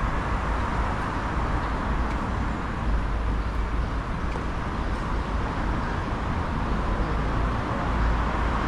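Steady outdoor city street noise: an even roar with a deep rumble underneath, without any single event standing out.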